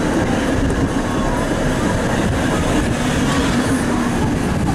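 A 1951 PCC electric streetcar rolling along its track, heard from inside the car: a steady rumble of wheels on the rails.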